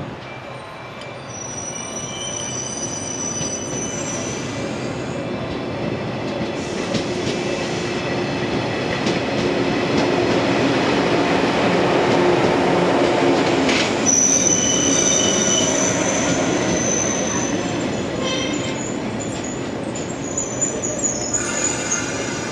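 Electric multiple unit train pulling into a station platform, its running noise growing louder as it draws alongside. A high-pitched squeal comes about two seconds in and again about fourteen seconds in as it slows, and a few sharp clicks come near the end.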